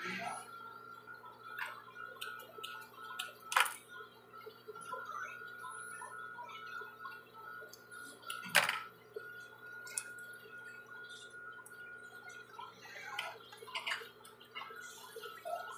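Scattered small clicks and light knocks of hands working at an industrial sewing machine, handling fabric, scissors and small parts, over a faint steady hum. Two sharper knocks stand out, one a few seconds in and one about halfway.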